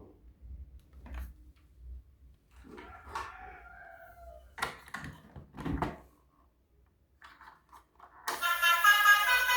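Scattered knocks and clicks of toys being handled, with a few brief pitched sounds in the middle. A little past eight seconds in, loud music starts abruptly.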